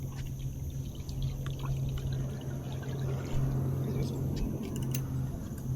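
Water trickling and pouring, over a steady low hum.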